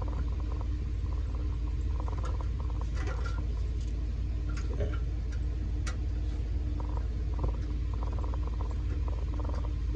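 A steady low hum, with a few light clicks and taps of small screws and a metal screwdriver being handled on a computer case.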